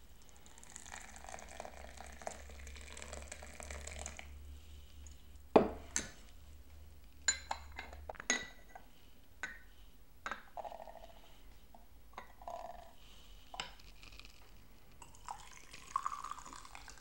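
Hot water poured into a porcelain gaiwan over the tea leaves for about four seconds, followed by a series of sharp clinks of the porcelain lid against the gaiwan and saucer. Near the end, tea is poured from the gaiwan through a metal mesh strainer into a porcelain pitcher.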